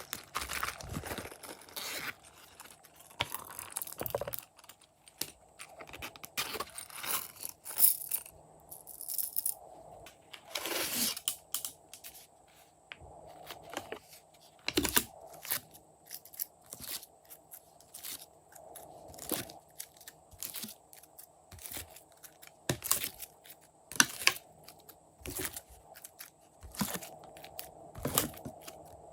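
Hands kneading and stretching slime with mix-ins worked through it, giving irregular crackling pops and crunches, some in quick clusters.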